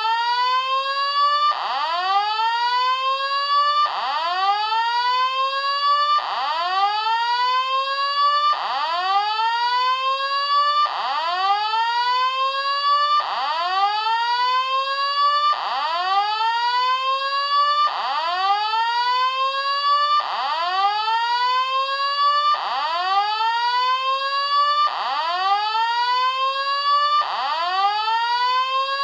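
Hotel emergency alarm system sounding its evacuation tone: an electronic rising whoop that climbs fast and levels off near its top, then restarts, about every two and a half seconds, over and over.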